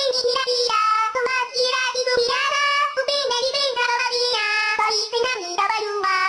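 A high-pitched, childlike sung voice singing a short melody of held notes.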